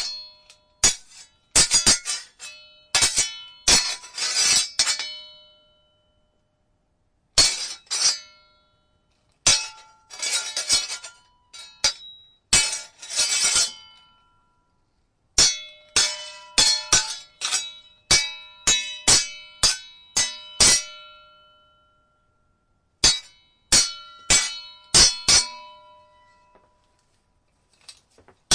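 Steel swords clashing: runs of quick blade-on-blade strikes, each hit ringing on with a bright metallic tone, broken by short silences between the runs.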